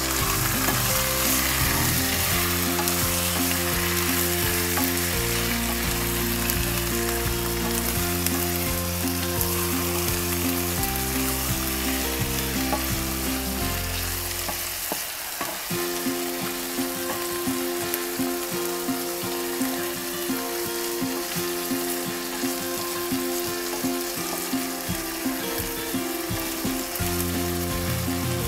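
Raw chicken pieces sizzling in hot olive oil with sautéed garlic and onion in a nonstick pan, with light scrapes and taps of a spatula as the pieces are stirred and turned.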